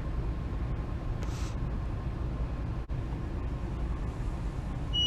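Steady low background hum, with one sharp click near the middle. Right at the end a TPMS scan tool gives a high electronic beep as it triggers the front right tire pressure sensor.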